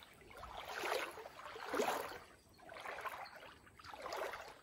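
Footsteps wading through shallow creek water, a soft slosh about once a second.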